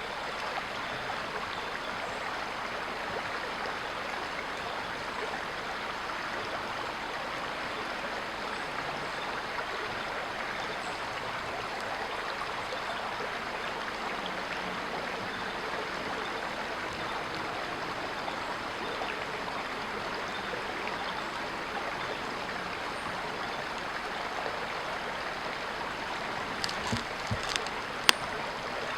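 Creek water running steadily, an even rushing wash. A few sharp clicks come near the end, the loudest just before it ends.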